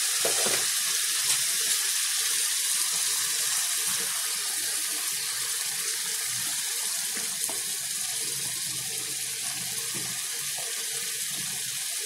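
Tomato masala sizzling and bubbling in a pan, a steady hiss that eases slightly, with a few soft knocks as pieces of fried okra and onion are dropped in.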